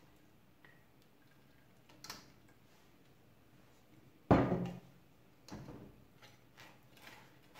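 A quiet kitchen with one loud clunk just after four seconds in, a light knock a couple of seconds earlier, then soft scraping and tapping as a metal spoon works chile purée through a plastic strainer over a pot.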